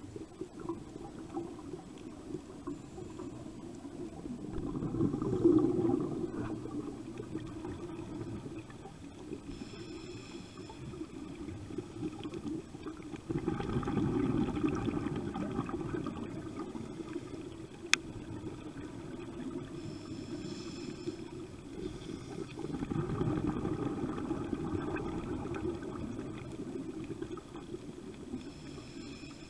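Water rushing and splashing along the hull of a boat under way, swelling louder three times, with a faint steady engine hum underneath. A single sharp tick sounds about two-thirds of the way through.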